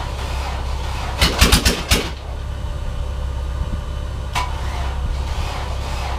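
OMC 4.3 L V6 marine engine being cranked slowly by a starter too weak to turn it over fast enough, a steady low rumble. Just over a second in comes a quick run of about five sharp cracks, and a single crack follows a few seconds later.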